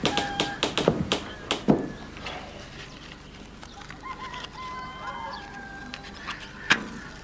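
Farmyard fowl: chickens clucking among other bird calls, with a few sharp knocks in the first two seconds and one more near the end.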